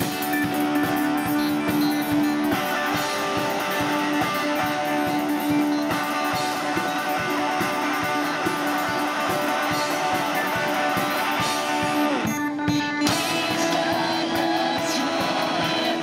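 Rock band playing live through an instrumental passage without singing, led by strummed electric guitar over a steady beat, with one note held low in the mix. The sound thins out briefly about twelve seconds in, then the full band carries on.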